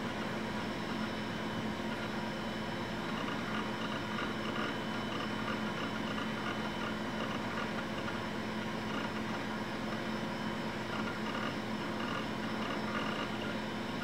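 Macintosh SE running as it boots, a steady whirring hum of its cooling fan and spinning drive, with a faint, uneven higher flutter over it from a few seconds in.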